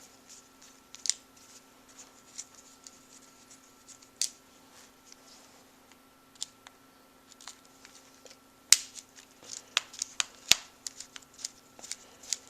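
Small clicks and ticks of a screwdriver and fingers working screws out of a Traxxas T-Maxx transmission case, with a run of sharper clicks in the last few seconds. A faint steady hum runs underneath.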